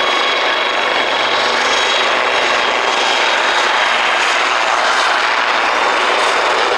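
British Army Westland Lynx helicopter flying low and close, its twin Rolls-Royce Gem turboshafts and rotors making a steady, loud rush of noise with a thin high turbine whine on top.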